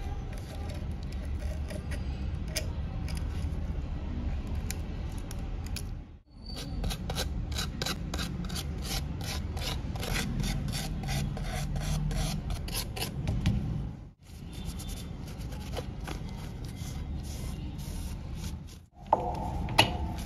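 A small stiff-bristled brush scrubbing rapidly against the edge of a phone's mid-frame to clean it: a steady run of quick scratchy strokes that cuts off abruptly a few times.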